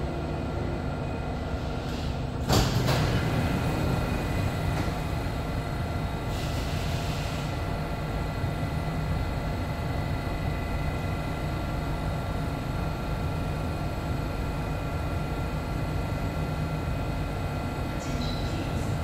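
Inside an SMRT CT251 metro train car standing at a station: the sliding doors shut with a sharp thud about two and a half seconds in, over the train's steady hum. A brief hiss follows a few seconds later.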